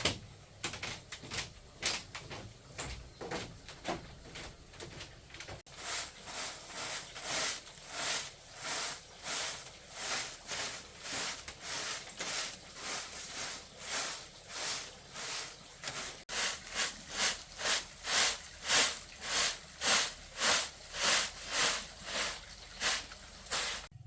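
Rhythmic rasping or scraping strokes, about two a second, each a short burst of hiss-like noise. They become louder in the last several seconds.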